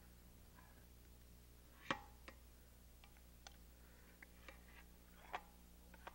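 Faint clicks and scrapes of a knife blade against a hot baking dish and a metal platter as the knife is run around the dish's edge to unmold it. The clicks are scattered and irregular, the sharpest about two seconds in, over a low steady hum.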